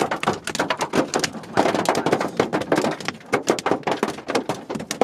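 Hailstones pelting a vehicle's roof and glass, heard from inside the cab as a dense, irregular clatter of rapid hits.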